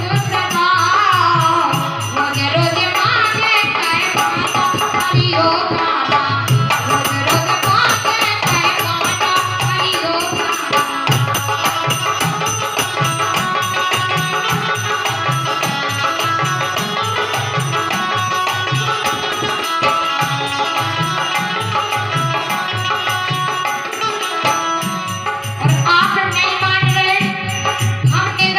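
Kartik geet, a Hindi devotional folk song: a woman singing with melodic accompaniment over a steady hand-drum beat and rattling percussion.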